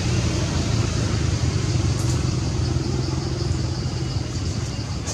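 Steady low rumble of a running engine, with faint short high chirps repeating over it from about two seconds in.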